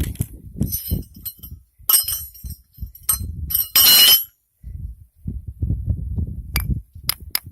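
Small pieces of found scrap metal clinking and clattering together as they are handled, a series of sharp clinks with brief ringing, the loudest about four seconds in and a few more near the end, with low handling rumble between them.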